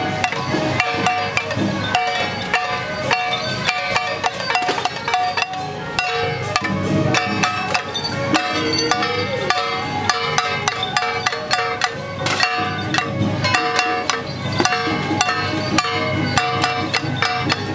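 Traditional temple-festival music with busy percussion: rapid, evenly spaced clacking strikes over sustained tones.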